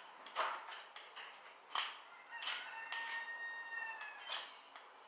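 Short, faint scrapes and clicks of a metal 5-in-1 painter's tool being scraped clean. A rooster crows once in the background in the middle, one long held call that drops slightly at its end.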